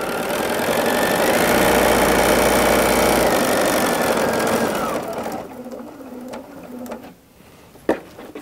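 Bernina B 790 sewing machine stitching the hem of a cotton napkin: the motor speeds up about a second in, runs, then slows and stops about five seconds in, finishing the last stitches at the corner. Quieter handling sounds and a single sharp click follow near the end.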